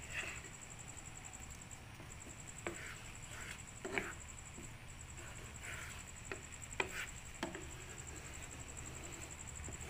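Wooden spatula stirring a thick sauce in a nonstick frying pan: brief soft scrapes and a handful of light knocks of the spatula against the pan.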